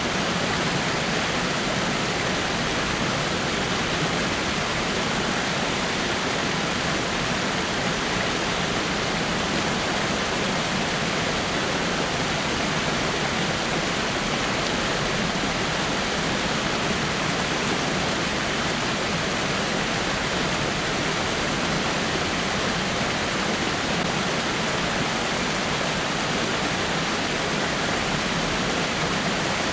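Water falling over rocks at a small waterfall, a steady rushing splash that doesn't change.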